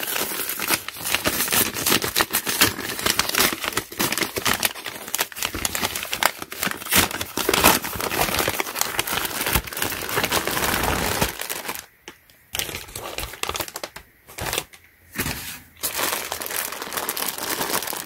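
A brown paper mailer being torn open and rustled, and the clear plastic bag inside it crinkling as it is pulled out and handled, with two short pauses about twelve and fifteen seconds in.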